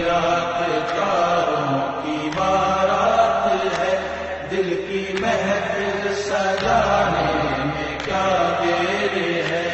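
Soundtrack music: a chant-like vocal line with long held, wavering notes over a low sustained bass that moves to a new note every one to three seconds.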